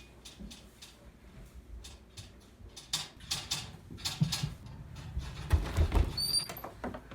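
Mechanical typewriter keys clacking in an irregular run, faster and louder in the middle, with a brief high ding near the end.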